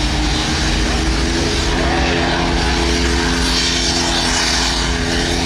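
Truck engine held at steady high revs during a burnout, with a hiss over it that swells briefly a little past the middle.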